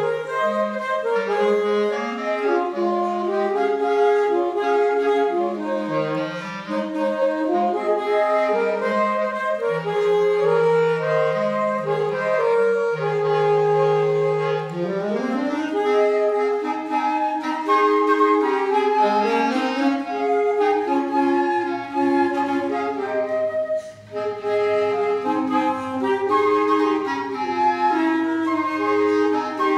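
Woodwind trio of flute, clarinet and saxophone playing a slow piece together, in interweaving melodic lines with held notes. The sound drops out briefly about three-quarters of the way through.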